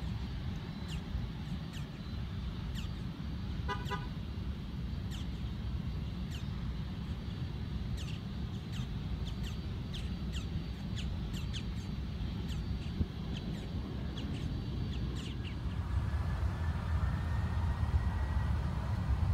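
Distant rumble of a TAM Boeing 767's twin jet engines as the airliner taxis. About 16 seconds in, the engines spool up for takeoff: the rumble grows louder with a faint rising whine. Short high chirps are scattered through the first part, with a brief buzzy rattle about four seconds in.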